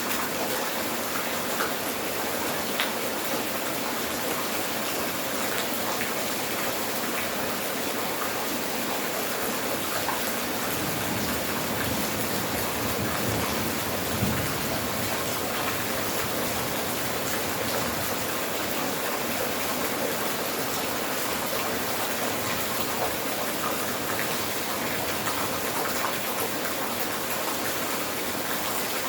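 Steady rainfall, with the odd louder drop landing close by.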